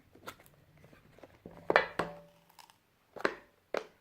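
Product packaging being handled and opened by hand: a few short rustles and clicks, the loudest a pair near the middle.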